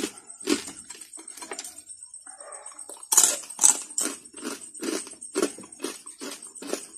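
Close-up crunching as a person chews crisp lechon (roast pig): a steady chewing rhythm of about two crunches a second, louder from about three seconds in.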